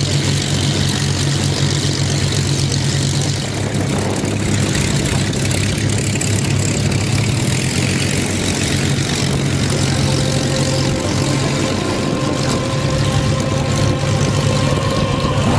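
Hawker Hurricane fighters' Merlin V12 piston engines running at low power as the aircraft taxi, a steady deep drone.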